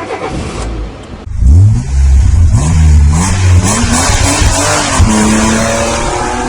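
A car engine revving up and down several times, loud, then holding a steadier pitch near the end.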